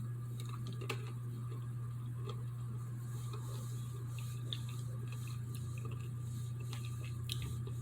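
Faint scattered clicks and small crunching mouth sounds of chewing a Tic Tac Chewy candy, crunchy shell over a chewy centre, over a steady low hum.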